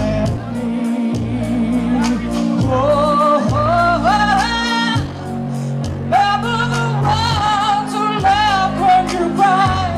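Pop song playing loud, a lead voice singing over bass and drums. The voice climbs step by step through the middle and holds wavering notes near the end.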